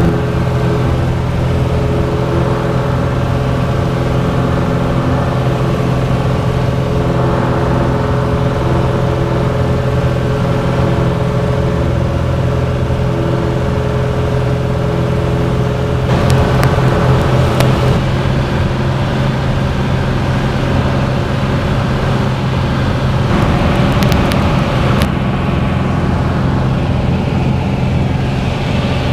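Piston engine and propeller of a single-engine high-wing light plane droning steadily in flight, heard inside the cabin. Two short stretches of extra rushing noise come about halfway through and again later.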